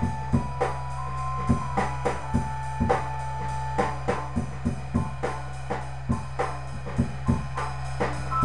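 Drum kit played in a steady groove, with bass drum, snare and cymbal strokes. Held notes from another instrument, likely guitar, sound over the first few seconds, and a steady low hum runs underneath.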